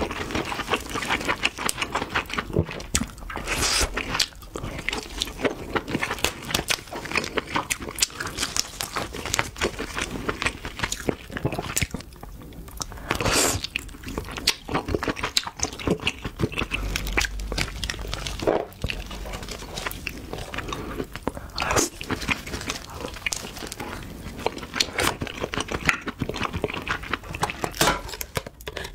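Close-miked eating of king crab: crunching of shell, sucking meat out of the legs and wet chewing, a dense run of clicks and crackles with a few louder bursts.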